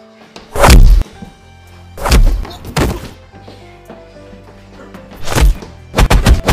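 Film-style fight sound effects: a series of heavy punch and kick impacts, each a short swish into a deep thud, spaced irregularly with a quick flurry of hits near the end.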